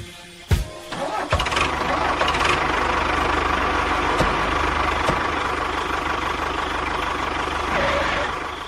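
An engine starts with a thump and a few clicks, then runs steadily with an even low pulse, fading out near the end.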